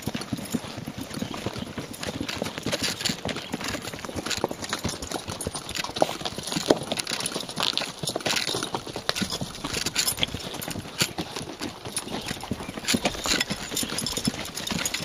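Several horses' hooves clip-clopping at a walk on a dusty dirt trail: a steady, uneven run of hoof knocks.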